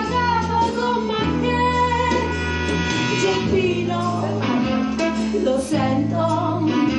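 A song playing: a woman singing over a backing track of held bass notes and guitar.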